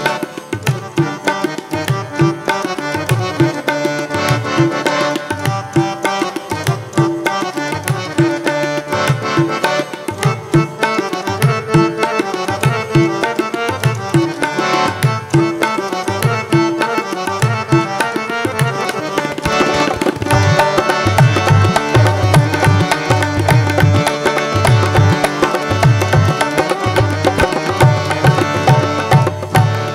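Instrumental break on tabla and harmonium. The tabla plays quick rhythmic strokes with deep bass thumps under the harmonium's sustained reedy melody and chords. The drumming grows louder and heavier about two-thirds of the way through.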